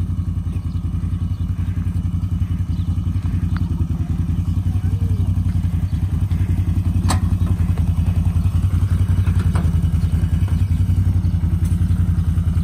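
Can-Am ATV engine idling steadily with a fast, even low pulse. A sharp knock sounds about seven seconds in.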